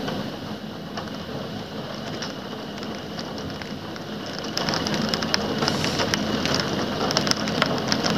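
Heavy rain falling: a steady hiss dotted with many small drop impacts, growing louder about four and a half seconds in.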